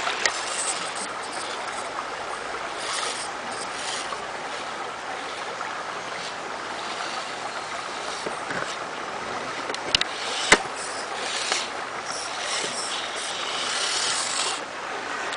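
Creek water running steadily, with the small electric motor and gears of a Losi micro rock crawler whirring as it crawls over rocks. Two sharp clicks come about ten seconds in.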